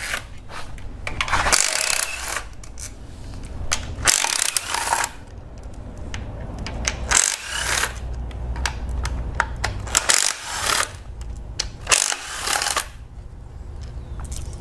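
Cordless impact driver with a 10 mm socket spinning out timing-cover bolts in about six short hammering bursts, with light metallic clinks of the loosened bolts between them.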